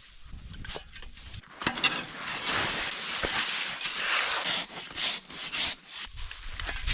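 Snow being dug out of a snow cave: a sharp knock about a second and a half in, then repeated rough scraping and crunching strokes into packed snow.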